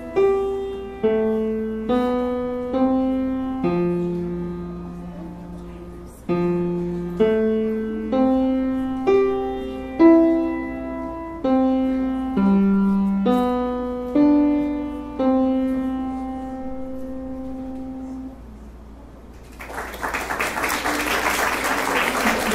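Grand piano playing a slow melody of single notes, roughly one a second over a lower line, ending on a long held note that dies away. After a short pause, audience applause starts near the end and is the loudest part of the clip.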